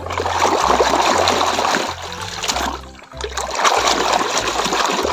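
Muddy water splashing as a plastic toy dump truck is swished back and forth through a shallow pool to wash the mud off, in two bouts of about two seconds with a short lull between.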